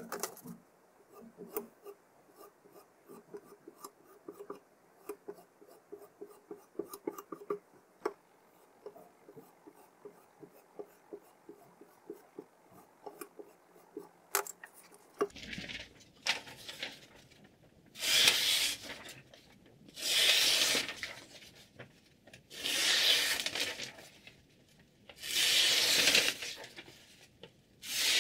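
Sharpening stone drawn along the edge of an M390 steel chef knife in a guided sharpening system: faint clicks and taps at first, then from about halfway in a run of long, loud abrasive strokes, about five of them, each roughly two and a half seconds apart.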